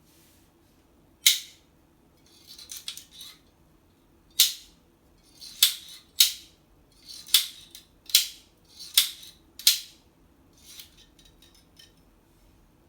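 A series of about eight sharp clicks with softer rustling handling noise between them, from hand work on a Makita HR3520 hammer drill during a switch replacement.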